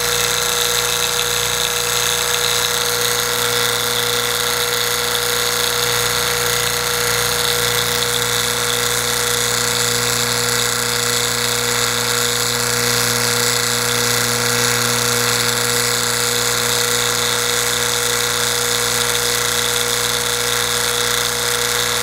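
HVAC vacuum pump running steadily with a constant motor hum, pulling a deep vacuum of about 10 to 16 microns on freshly changed oil: the pump is healthy.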